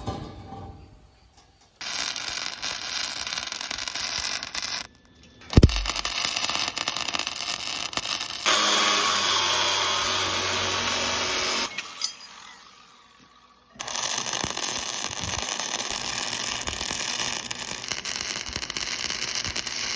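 Harsh, steady hissing noise from working steel, in four stretches of a few seconds with short breaks between, and a single loud thump about five and a half seconds in.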